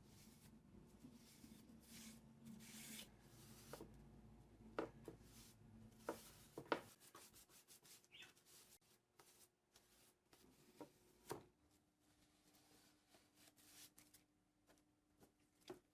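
Faint rubbing and handling on wood, with a few light knocks and clicks scattered through.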